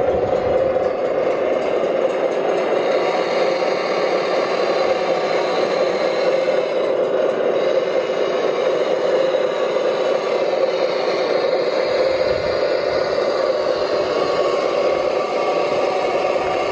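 Electric motors and gearing of radio-controlled model construction vehicles whirring steadily, with some clatter.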